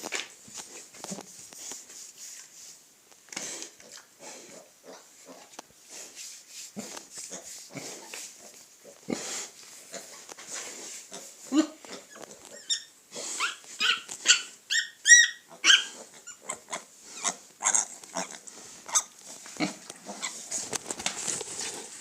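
Piglets grunting and snuffling in many short, irregular bursts, with a run of high-pitched squeals about two-thirds of the way through.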